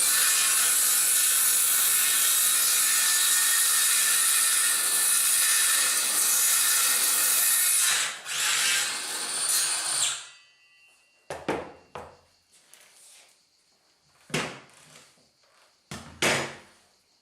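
Parkside PHKSA 20-LI A2 20 V cordless circular saw running and cutting through a piece of wood, steady for about eight seconds, then uneven as the cut finishes and the blade winds down about ten seconds in. A few short knocks follow.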